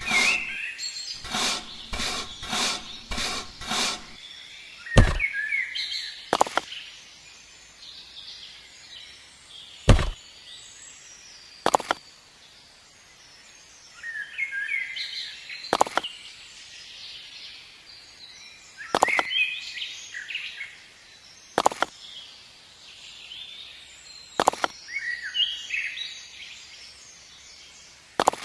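Small birds chirping, with sharp taps: a steady run of about two or three taps a second for the first four seconds, then single taps every two to three seconds.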